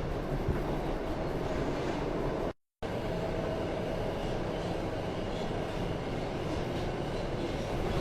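Running noise heard from inside an R160 subway car under way: a steady rumble of wheels on rail with a faint steady whine. About two and a half seconds in it drops out for a split second, then carries on.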